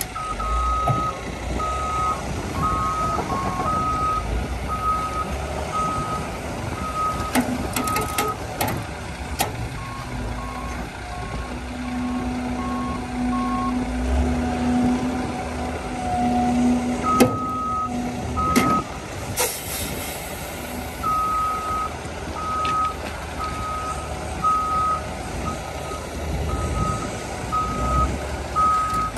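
Heavy-equipment backup alarms beeping about once a second over the low rumble of diesel engines while a CAT 320 excavator works to free a stuck dump truck. The beeping pauses for several seconds in the middle and starts again. A few knocks sound around the pause, and a short hiss follows.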